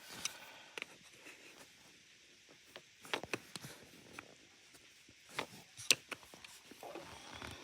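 Scattered clicks and light knocks of hard plastic as a Hoover vacuum is handled, someone fumbling with its dust bin to find how it opens.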